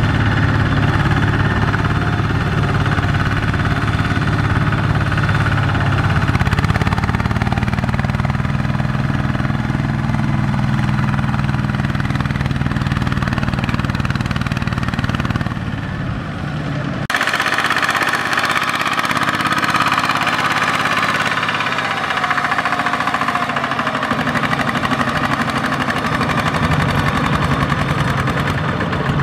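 Kubota ZT155 walking tractor's single-cylinder diesel engine running steadily while pulling a loaded trailer. The sound changes abruptly a little past halfway, losing much of its low rumble.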